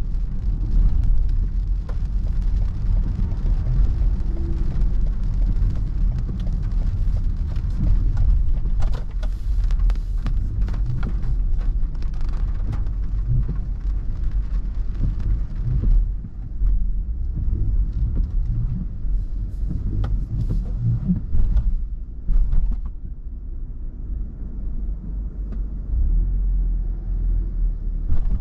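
Car driving, heard from inside the cabin: a steady low rumble with a hiss of rain and wet road. About halfway through, the hiss drops away as the car moves under the roof of a car park, leaving the rumble.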